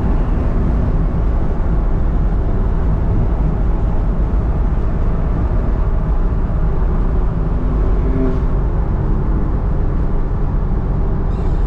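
Car's engine and road noise droning steadily from inside the cabin at a steady highway cruise.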